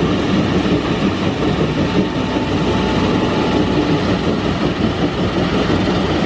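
LiuGong wheel loader's diesel engine running steadily as the machine drives and raises its bucket: a continuous heavy-machinery rumble.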